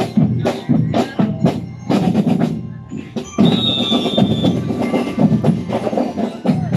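Marching drum-and-lyre-corps drums beating a steady cadence on snare and bass drums. The beating dips briefly about three seconds in, then resumes.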